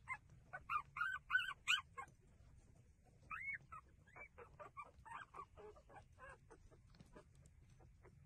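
Newborn puppies squeaking and whimpering while nursing. A quick string of short, high squeals comes in the first two seconds, then a second, sparser run of shorter squeaks from about three to six seconds in.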